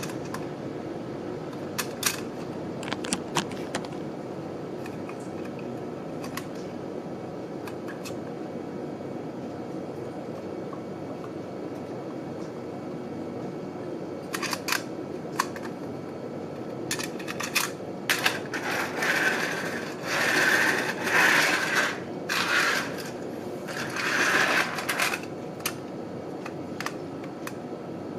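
Handling noise from a tinplate toy tram turned over in the hands: scattered light clicks and taps, then a stretch of louder rubbing and scraping about two-thirds of the way through, over a steady low hum.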